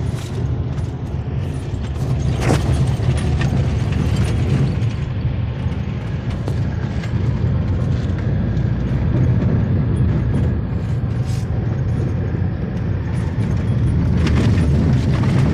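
Pickup truck driving over a rough dirt trail, heard from inside the cab: a steady low engine and road rumble with a few sharp knocks from bumps.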